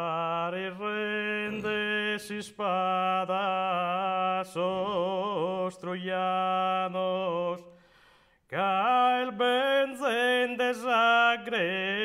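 Sardinian canto a tenore: four unaccompanied male voices (boghe, mesu boghe, contra and bassu) holding close chords over a steady low drone. The singing breaks off briefly about two and a half seconds in, stops for a moment a little past halfway, then comes back in.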